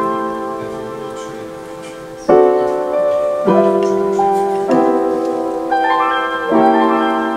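Background piano music: slow, soft chords, each struck and left to fade, with a new chord about every second.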